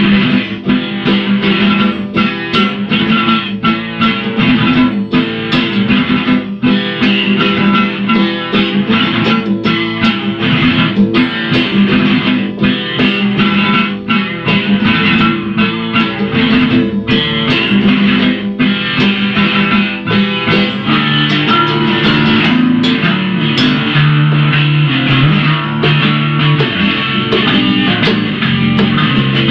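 Rock band playing: guitars over bass and a steady drum beat, with a change in the bass line about two-thirds of the way through.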